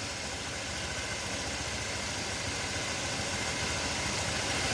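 Small scooter engine idling steadily, growing slightly louder.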